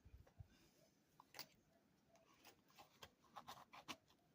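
Near silence with faint, scattered light clicks and taps of small objects being handled, a few more of them close together near the end.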